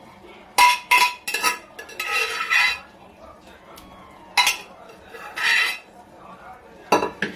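A metal spoon stirring sprouted moong sabzi in a steel kadai: sharp clinks and taps against the pan, several in the first second and a half, again about four seconds in and near the end, with two longer scrapes across the pan in between.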